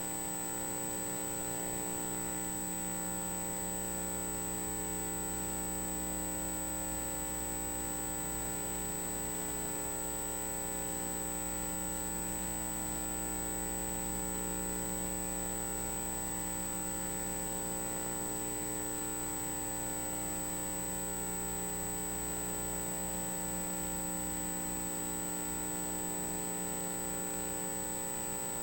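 Steady electrical hum with a constant thin high-pitched whine over it, unchanging throughout, with no heartbeat pulses.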